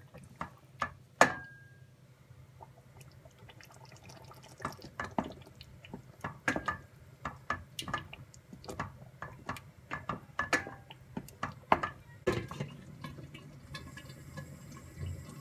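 Glass pot lid lifted off a stainless steel pot with a clink and a brief ring. Then thick tomato-and-roasted-pepper sauce simmering and spattering, with irregular pops and taps as a wooden spoon stirs it. The lid knocks back onto the pot near the end.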